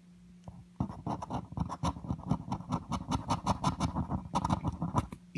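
Scratch-off coating being scraped off a lottery scratch ticket in rapid back-and-forth strokes, about seven a second, starting about a second in and stopping just before the end.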